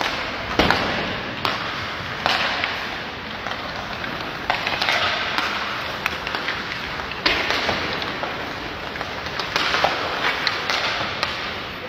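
Ice hockey skate blades scraping and hissing on the ice in repeated surges, with sharp clacks of sticks striking the puck.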